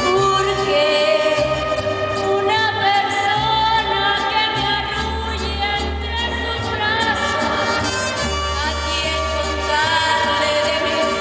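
Woman singing a Mexican song into a microphone over a live mariachi band of violins and guitars with a low plucked bass line.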